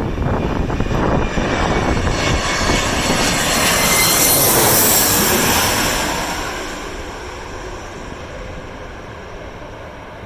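Airliner passing low overhead on final approach to land: its engine noise builds to a peak with a high whine about halfway through, then drops in pitch and fades away. Wind buffets the microphone at the start.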